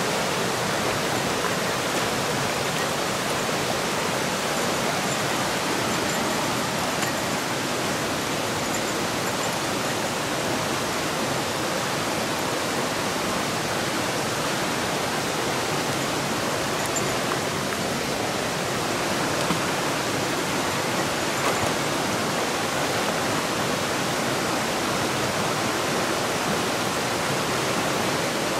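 Steady rush of a fast-flowing river running over rocks, an even noise that does not change.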